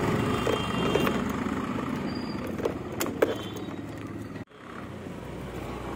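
Steady outdoor background noise with a few light clicks and a short high beep about two seconds in, as an electric scooter's dashboard is switched on. The sound cuts out for a moment about four and a half seconds in.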